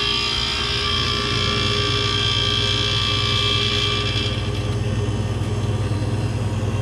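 Hermetic compressor of a True T-23F reach-in freezer just after start-up: a loud high-pitched noise over its running hum stops about four seconds in, leaving a steady hum. The loud start-up noise is the freezer's complaint, which the technician leans toward putting down to the compressor starting to go out.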